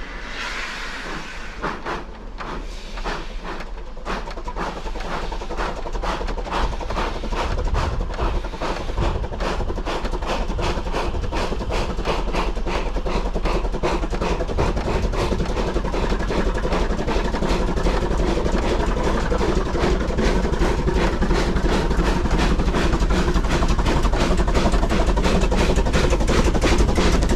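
A 107-year-old steam rotary snowplough at work, its rapid, evenly spaced steam exhaust beats over a rushing of thrown snow. Both grow steadily louder as it approaches.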